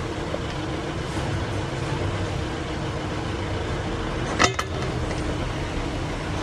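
A 4x4's engine running steadily at idle, with one sharp double clunk about four and a half seconds in: the jolt from the rear differential when reverse is engaged.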